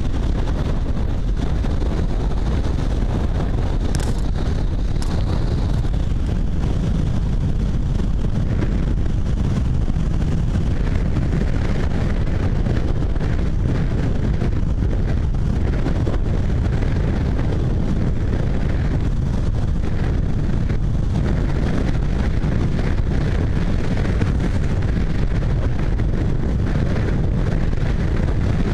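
Wind buffeting the microphone of a camera mounted on the outside of a moving car, a steady rumbling rush with the car's road and engine noise underneath.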